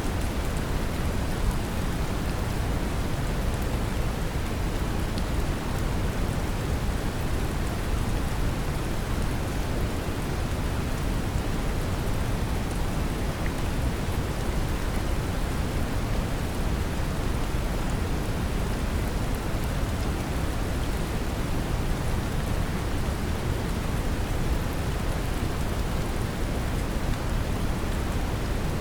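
Steady brown noise mixed with gentle rain: a deep, even rushing hiss strongest in the lows, with small scattered raindrop ticks over it.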